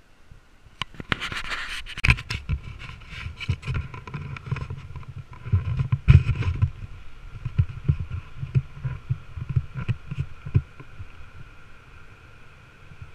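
Irregular thumps, knocks and scrapes of footsteps and a plastic whitewater kayak and paddle being moved over rocky ground, picked up by a GoPro. The knocks are densest in the first half and thin out after about ten seconds.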